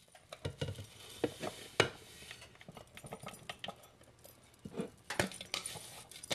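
Coarsely ground dry oat-and-spice mix being tipped out of a plastic food processor bowl into a mixing bowl: scattered light clicks and knocks of the bowls, with a rustling pour of the dry grains near the end.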